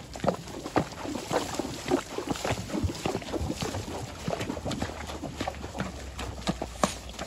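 Horses' hooves splashing through a shallow creek at a walk: a steady run of irregular splashes and knocks as the hooves lift and set down in the water.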